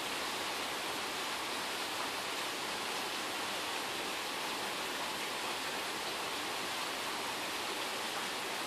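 Steady rain falling: an even, unbroken hiss with no thunder or distinct drops.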